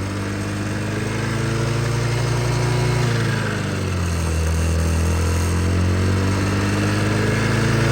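2009 Honda Metropolitan scooter's 49cc four-stroke single-cylinder engine running and revving up with the throttle untouched, as its air intake is choked by hand with a paper towel. The revs rise, sag about three seconds in, then climb again. The choking keeps the engine running while fresh fuel works through it after months of sitting.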